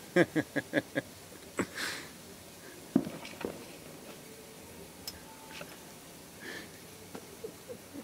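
Fire burning inside an inverter microwave oven whose power has been cut by a tripped circuit breaker: scattered crackles and sharp pops, the loudest a crack about three seconds in. A person's voice is heard briefly at the start.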